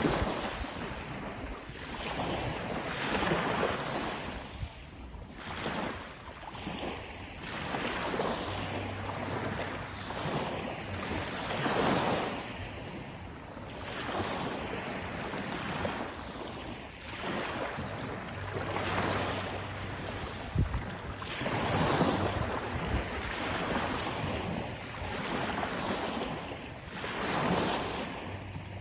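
Sea waves breaking and washing in, each surge swelling and fading every four to five seconds. A single sharp knock about twenty seconds in.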